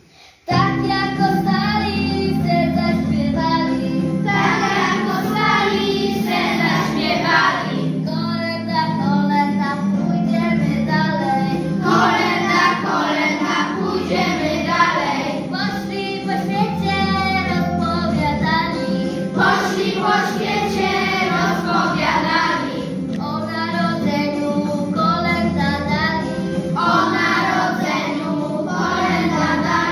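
A class of young children singing a Polish Christmas carol together with instrumental accompaniment, the singing starting just after a brief pause at the very beginning.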